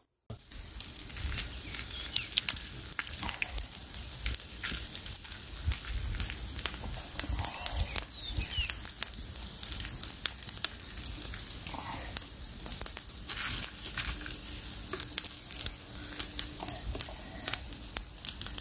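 Frogs roasting on stick skewers over wood embers, the fire crackling and popping in rapid, irregular snaps.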